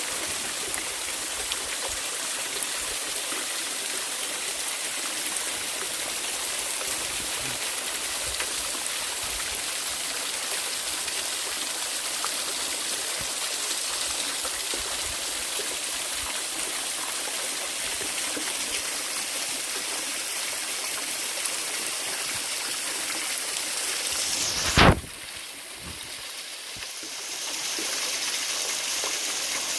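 Water running steadily at a frozen waterfall, an even rushing hiss. Near the end a single sharp click comes, the rushing drops quieter for a couple of seconds, then returns.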